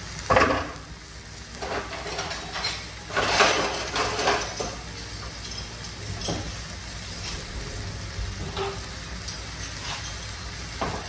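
Shredded cabbage and vegetables sizzling in a stainless sauté pan, a steady frying hiss with a few short louder bursts, one about a second in and a cluster around three to four seconds in.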